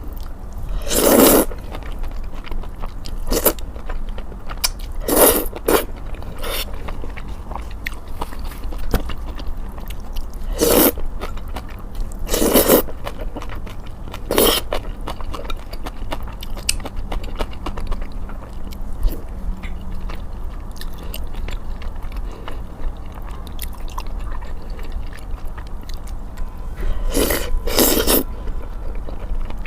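Close-miked mukbang eating of malatang: steady chewing, broken by about nine short, louder mouth noises, grouped near the start and again near the end.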